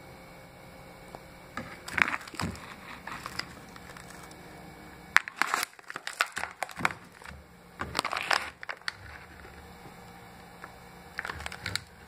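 Plastic bag of Birds Eye Steamfresh frozen green beans crinkling as it is handled and turned over, in four separate bouts of rustling.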